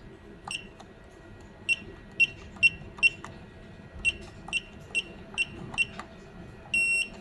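Universal garage door keypad beeping as its buttons are pressed: about ten short high beeps, each with a small click, then one longer beep near the end.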